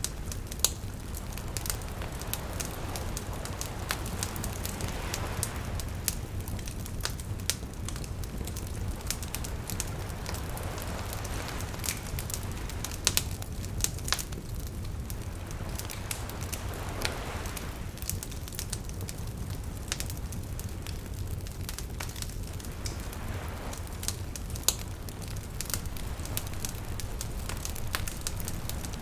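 Campfire crackling with scattered sharp snaps over a steady low rumble, while gentle waves swell and wash in about every six seconds.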